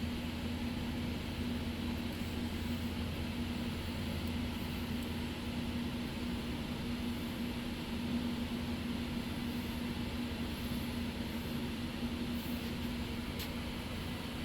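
Steady mechanical hum with a constant low tone, unchanging throughout, and a few faint ticks near the end.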